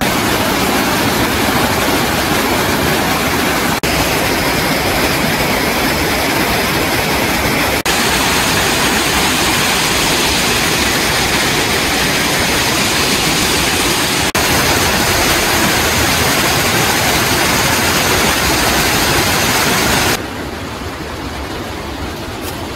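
Waterfall rushing: a steady, loud roar of falling water. About twenty seconds in, it drops to a softer rush.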